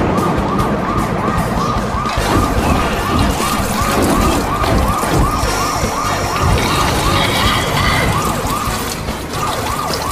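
Electronic emergency siren wailing in quick cycles, about three rises and falls a second, over a dense rumble; the cycles mostly stop near the end.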